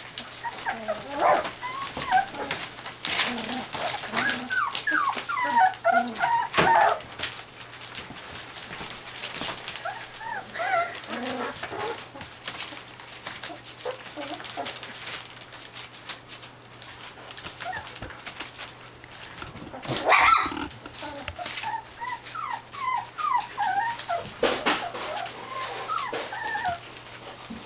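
A litter of young puppies whining and squeaking as they tussle: many short high-pitched cries that rise and fall, coming in clusters with quieter gaps. A couple of sharp knocks stand out, the loudest about twenty seconds in.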